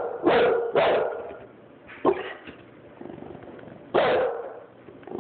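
Bulldog barking: four short barks, two close together at the start, one about a second later and a last one near the end.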